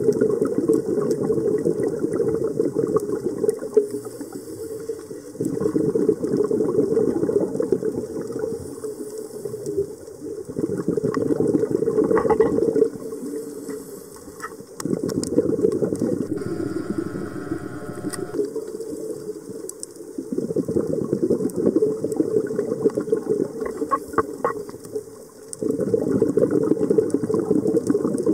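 Scuba diver's regulator breathing underwater: about five long bubbly exhalations of several seconds each, with quieter gaps between them.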